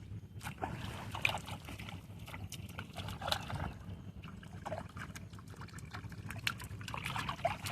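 Irregular splashing and trickling of water as a hooked panfish thrashes at the lake surface on a cane pole, over a steady low rumble.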